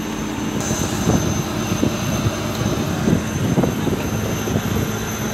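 Fishing boat's engine running steadily, a loud continuous mechanical drone with a steady low hum.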